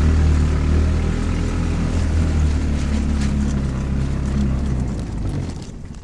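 A vehicle's engine running steadily as it drives, a low hum that fades away near the end as it slows.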